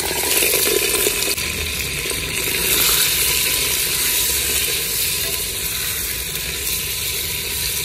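Raw chicken pieces sizzling steadily in hot oil in a clay pot as they are stirred with a wooden spoon, a dense, even hiss with no let-up.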